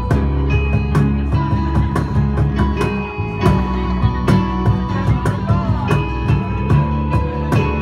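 Live band playing a song: acoustic guitar, keyboard and a second guitar over a steady beat.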